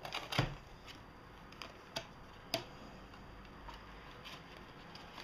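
A product box and its packaging being handled and opened: a handful of sharp clicks and taps, the loudest about half a second in, with two more around two and two and a half seconds in.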